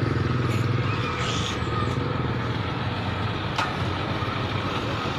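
Engines running: a motorcycle's pulsing engine fades out in the first second, leaving the steady hum of the idling excavator's diesel engine. A single sharp knock comes about three and a half seconds in.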